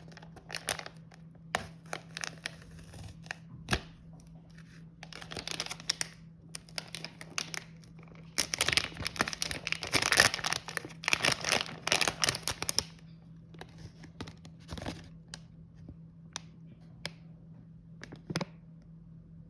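Snack packaging being crinkled and torn open by hand, in two longer bursts of rustling in the middle, with a few sharp taps and clicks scattered before and after. A faint steady low hum runs underneath.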